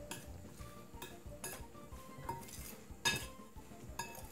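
Large metal spoon stirring sliced raw pork and chopped vegetables in a glass mixing bowl, clinking and scraping against the glass at irregular intervals, with short ringing tones after each knock. The loudest clink comes about three seconds in.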